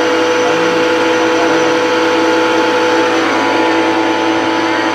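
Kawasaki ACK 302 electric pressure washer running steadily, its motor and pump giving a loud, even drone with a steady hum.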